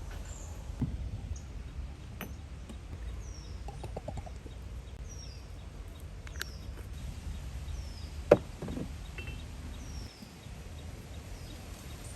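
Outdoor ambience with a low rumble and a bird repeating a short, falling chirp about once a second. A single sharp knock about eight seconds in is the loudest sound, with a few fainter clicks.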